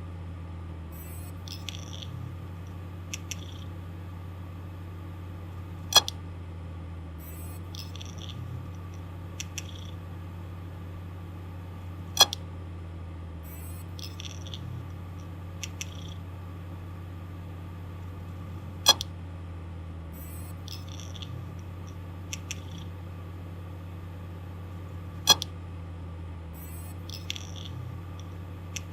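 Failing hard disk drive running: its spindle motor hums steadily while a sharp, loud click comes about every six and a half seconds, each followed a second or two later by a few fainter ticks from the read/write head. The repeating click cycle is the sound of a malfunctioning drive.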